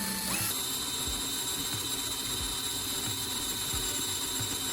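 Electric drill running steadily, boring a hole through a metal disc; its whine steps up slightly in pitch just under half a second in.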